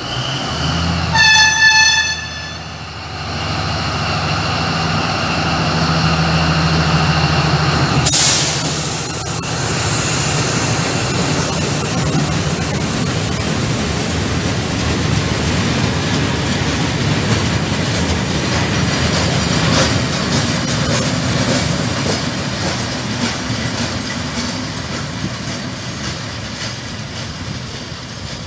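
Diesel shunting locomotive sounds its horn in one short blast about a second in, then its engine runs as it passes hauling two flat wagons. The wheels roll and clatter over the rails, slowly fading near the end.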